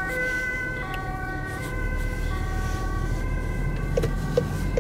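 Ambulance two-tone siren, switching back and forth between two notes about once a second, heard from inside a following car over its low engine and road rumble. A few short clicks near the end.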